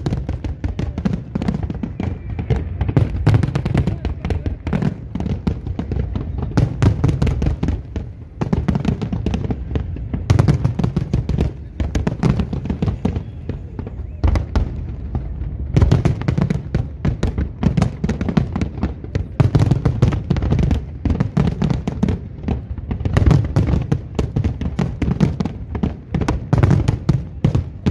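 A dense barrage of aerial firework shells bursting: rapid, near-continuous booms and crackle with only brief lulls.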